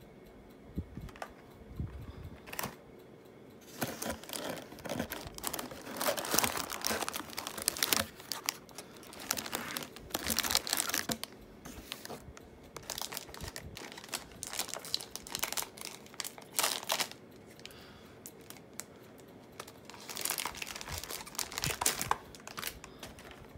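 A Heroclix foil booster pack being torn open and its foil wrapper crinkled by hand, in irregular bursts of tearing and crinkling with short pauses between.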